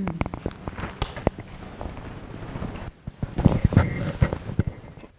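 Two quick, irregular runs of light knocks and clicks, the second about three seconds in.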